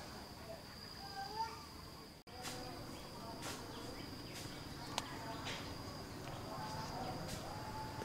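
Steady high-pitched insect trill, cricket-like, running on without a break, with short faint chirps and a few sharp clicks over it. The sound cuts out for an instant about two seconds in.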